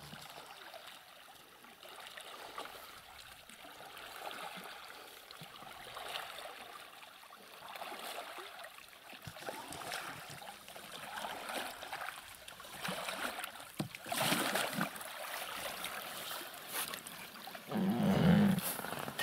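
Oars dipping and splashing in the water as a small inflatable rubber boat is rowed in, getting louder as it comes closer. Near the end there are louder bursts of splashing and handling noise.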